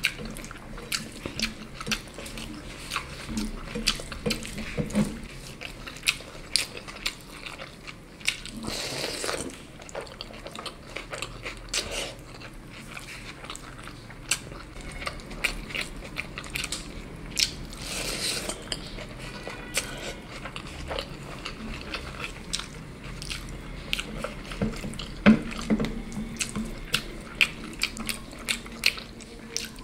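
Close-miked eating sounds: a person chewing and biting food, with frequent sharp clicks and short crunches, and two longer noisy sounds about nine and eighteen seconds in.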